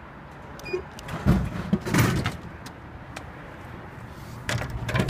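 Japanese drink vending machine dispensing a plastic bottle: the machine's mechanism releases it and the bottle drops into the tray with heavy thuds about a second and two seconds in. More knocking and clatter follows near the end.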